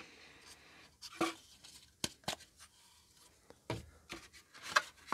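Cardboard watch packaging handled and set down on a table: a faint rustle, then a few scattered light taps and short scrapes.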